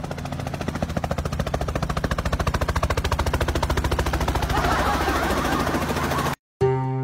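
A fast, even rattle of about ten strokes a second over a steady low hum. It cuts off suddenly near the end.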